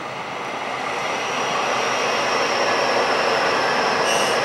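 Taiwan Railways EMU800 electric multiple unit passing close by, its rumble and wheel-on-rail noise growing steadily louder as it draws near. A thin steady high whine comes in about two seconds in.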